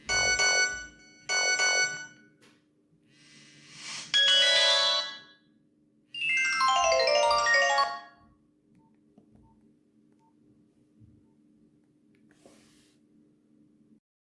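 Nokia X1-01 mobile phone playing short ringtones through its small loudspeaker: two quick chime bursts, a swelling tone about four seconds in, then a falling run of notes, followed by only a faint steady hum.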